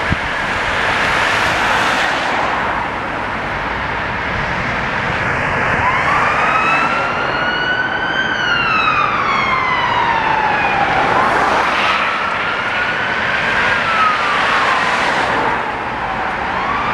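Scania P280 fire engine's siren on a slow wail, the pitch rising and falling roughly every five to six seconds, heard most clearly from about six seconds in, over steady road traffic noise.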